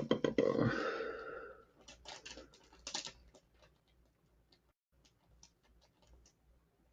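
The tail of a low voiced sound dies away, followed by a cluster of light clicks and taps about two to three seconds in. These thin out to faint scattered ticks.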